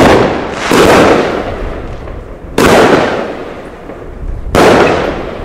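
A 20-shot Brocade Rain firework cake with 30 mm shells firing four loud bangs. The first two come close together, then two more follow about two seconds apart, each dying away over about a second.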